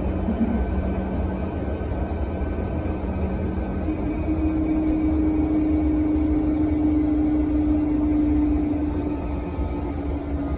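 Cabin noise inside a Solaris Urbino 18 electric articulated bus on the move: a steady low rumble with a humming tone. About four seconds in, the hum jumps higher in pitch, then sinks slightly near the end.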